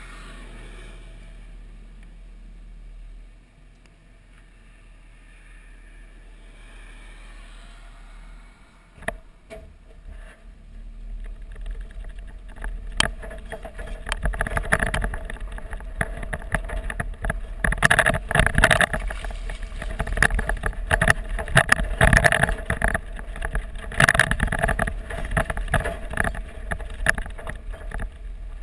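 Toyota Tacoma pickup, loaded with a quad bike, first idling with a quiet steady hum. About twelve seconds in it starts driving over a rough gravel track. Tyres crunch on the gravel, and the body and suspension knock and rattle irregularly over the bumps, heard close to the wheel.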